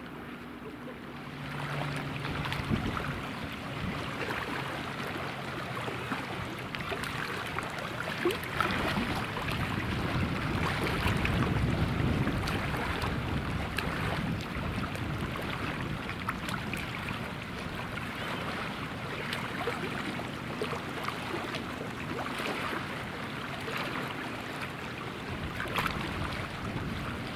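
Single-turboprop Air Tractor AT-802 Fire Boss air tankers droning as they fly past, with wind noise on the microphone. The drone gets louder about two seconds in.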